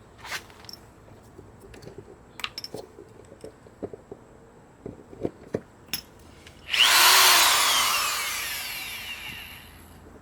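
Scattered clicks and knocks of handling, then about seven seconds in a power tool starts loud and winds down, its whine falling in pitch as it fades over about three seconds.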